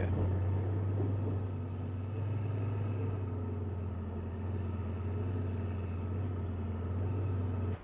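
Steady low rumble of motor vehicles, a deep even engine hum with a faint haze of noise above it, cutting off suddenly near the end.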